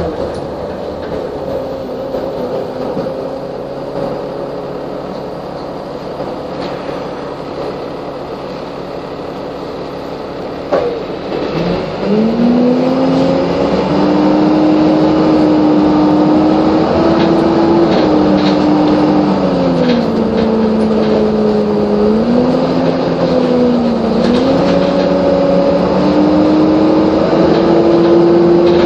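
Optare Solo bus engine and drivetrain heard from inside the saloon: a steady low running for about ten seconds, then a knock, after which the engine note rises as the bus pulls away. The pitch drops and climbs again a few times with the gear changes, then rises steadily to the end.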